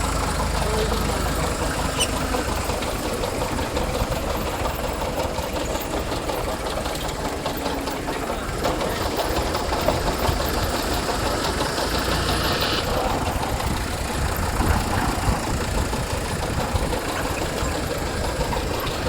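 Tractor engine running steadily while driving a potato harvester. A higher hiss joins for a few seconds about nine seconds in.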